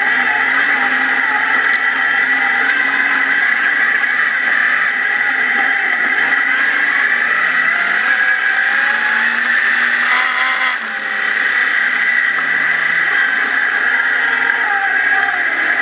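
Off-road vehicle engine running while driving a dirt trail, its pitch rising and falling with the throttle, heard close-up from beside the front wheel. There is a brief drop in level about eleven seconds in.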